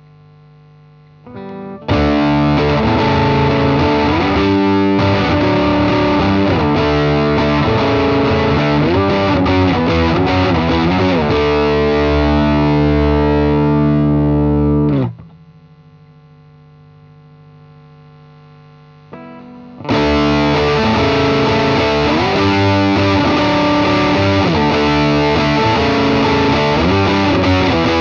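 Electric guitar with a P90 bridge pickup played through a DigiTech Bad Monkey overdrive pedal: distorted riffs and held notes with string bends. The playing stops abruptly about halfway through, leaving a few seconds of low amp noise, then starts again a few seconds before the end.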